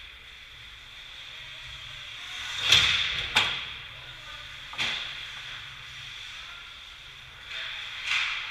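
Ice skates scraping and carving on rink ice close by: a loud swish about three seconds in, a second just after, a third near five seconds, and more scrapes near the end.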